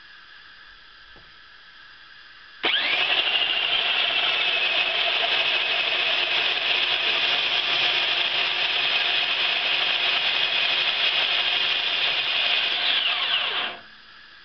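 Homemade handheld bandsaw mill, driven by a mounted circular saw's electric motor, starts up suddenly a little under three seconds in and runs with a steady high whine as the band rips along a 4x4. Near the end it is switched off and winds down with a falling pitch.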